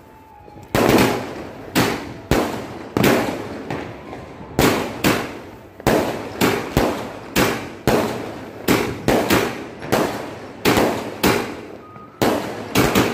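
Aerial fireworks bursting overhead one after another, a quick series of loud bangs at about two a second, each trailing off briefly.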